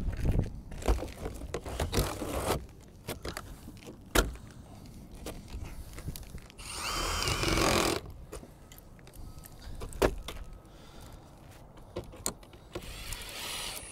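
Knocks and clatter of metal roof shingle panels being handled and set on the roof, with a cordless drill running for about a second and a half about halfway through as it drives a fastener into a panel.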